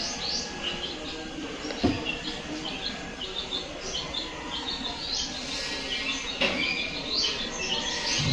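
Small birds chirping over and over in short, quick chirps, with a single knock about two seconds in.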